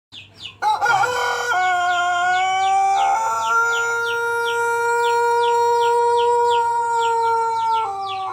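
Rooster crowing: one very long, drawn-out crow that steps up in pitch in its first few seconds, then holds a steady note for about five seconds before breaking off. Short, high chirps repeat about twice a second behind it.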